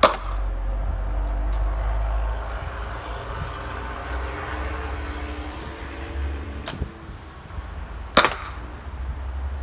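Two sharp pops from a 37mm launcher firing primer-only 12-gauge shotgun hulls loaded with glitter (no powder): one right at the start, the loudest, and one about eight seconds in. A lighter click comes about a second before the second shot while the launcher is handled. A steady engine-like drone runs underneath.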